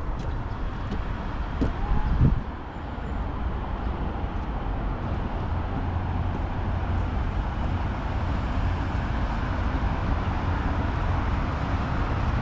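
Steady outdoor road-traffic noise, swelling about two seconds in with a short whine that rises and falls.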